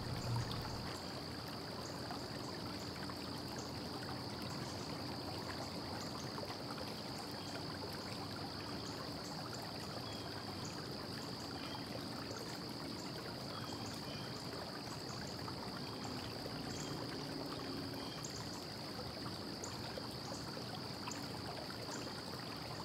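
Steady hiss with a thin, high-pitched whine held throughout, and no distinct events: background noise only.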